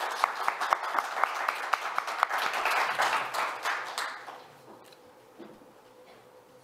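Audience applause: a round of hand clapping from a seated crowd that dies away about four seconds in, leaving quiet room tone.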